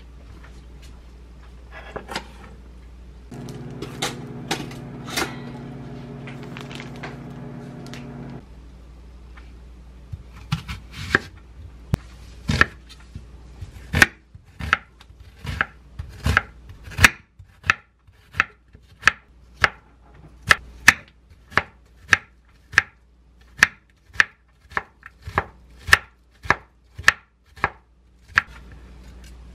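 A kitchen knife chopping a white onion on a wooden cutting board, sharp even strokes about two a second through the second half. Before it, a steady low hum runs for about five seconds.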